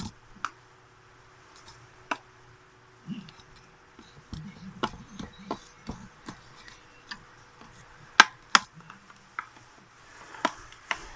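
Fluffy slime being squeezed and poked by hand, giving a string of irregular sharp clicks and pops, two of the loudest close together a little past halfway.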